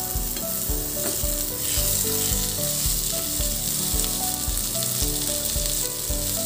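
Onions and chopped tomato sizzling in hot oil in a nonstick kadai, stirred with a wooden spatula.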